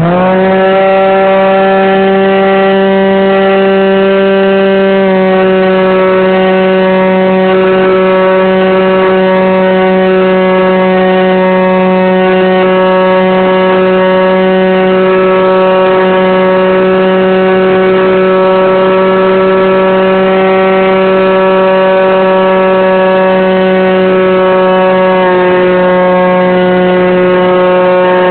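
Electric motor and propeller of a radio-controlled model Cessna 182, heard close up from the airframe, whining steadily at high throttle. The pitch steps down slightly about five seconds in and again near the end, as the throttle is eased back a little.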